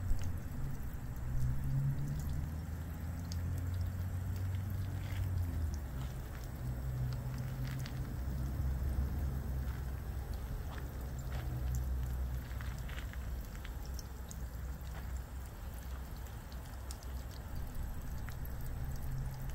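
Water trickling and splashing down a Patina Flower Cup rain chain, pouring from cup to cup, with many small drips and splashes. A steady low rumble runs underneath.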